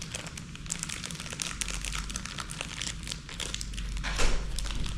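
Packaging crinkling and crackling as it is handled, with a louder crackle about four seconds in.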